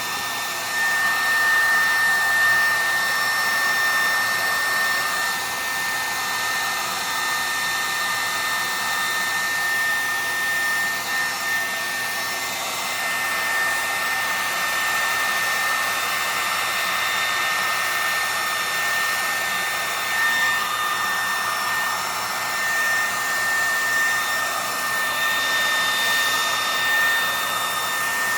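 Loud hair dryer running steadily, blowing on wet alcohol ink, with a thin high whine over the rush of air; its loudness swells slightly now and then.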